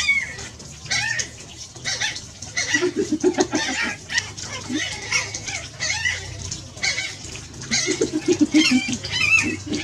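Domestic chickens clucking in two short, quick runs, about three seconds in and again near eight seconds, among scattered short high chirps.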